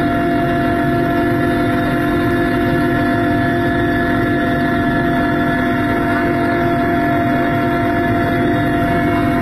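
Helicopter engine and rotor running steadily, heard from inside the cabin at the open door: a loud, even drone with a constant whine.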